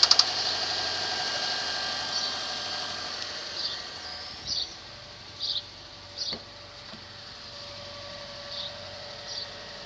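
Subaru EJ25 2.5 turbo engine's fast, rhythmic knock, the knock of a cold engine, stops a moment in. It leaves a fading hiss and a faint steady hum, with about seven short high chirps scattered through the rest.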